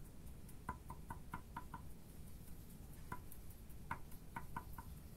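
Kitchen knife mincing garlic on a thick wooden chopping board: light, quick taps of the blade on the wood, in two short runs of about half a dozen chops each with a single chop between them.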